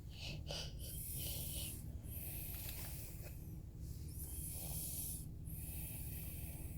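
Snoring: several noisy breaths in a row, each a second or two long, with short breaks between them, over a steady low hum.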